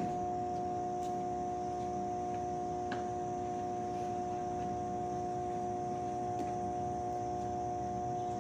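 Steady electrical hum of energized substation power transformers on a 69 kV system, a few faint clicks over it.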